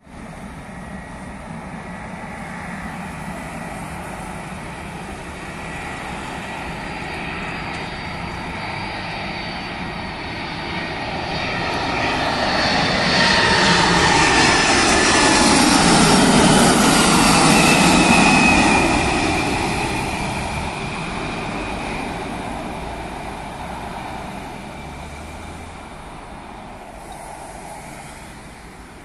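Boeing 747-400 freighter's four jet engines as the aircraft passes by. The roar builds to a peak about two-thirds of the way through, the engine whine falling in pitch as it goes past, then fades away.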